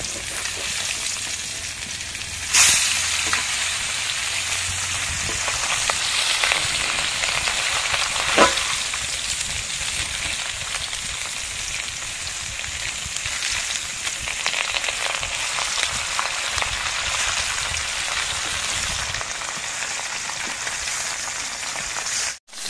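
Pieces of rohu fish sizzling steadily as they shallow-fry in oil in a metal karahi, with a metal spatula clanking sharply against the pan twice, a couple of seconds in and about eight seconds in. The sound cuts out briefly near the end.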